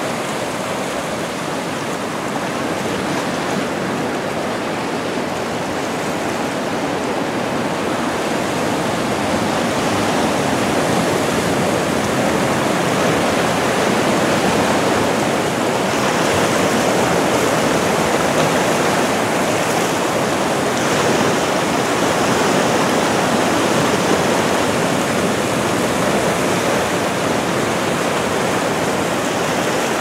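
Seawater rushing and spilling over low lava-rock ledges into tide pools, with ocean surf washing in behind, in a continuous steady rush that grows a little louder about nine seconds in.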